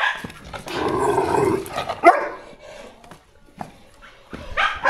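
A dog barking in short loud bursts during the first two seconds and again near the end, with a quieter stretch between.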